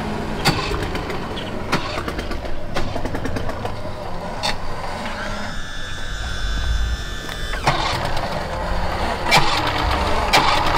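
A pickup truck's engine running with a low rumble, over scattered clicks and knocks, with a steady high whine for a couple of seconds midway.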